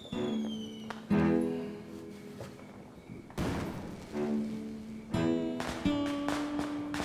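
Instrumental background music: slow, separate plucked guitar notes, each starting sharply and dying away, with one longer held note near the end.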